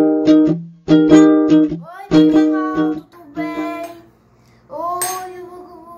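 Intro music of strummed plucked-string chords, about one strum a second, giving way about halfway through to a girl's voice.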